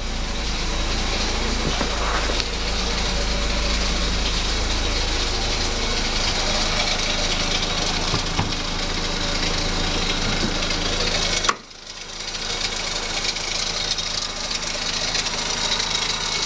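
1991 Mercedes-Benz 230 E's 2.3-litre four-cylinder petrol engine idling steadily while still cold from its start. The sound cuts off abruptly about eleven and a half seconds in and the idle picks up again straight after.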